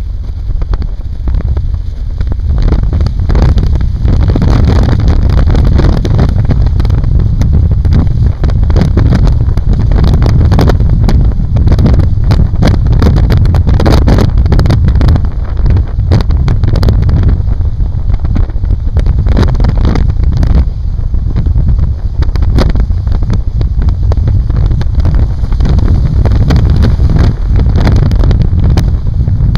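Loud wind buffeting the microphone at a moving car's side window, rumbling and gusting irregularly, with road and tyre noise under it.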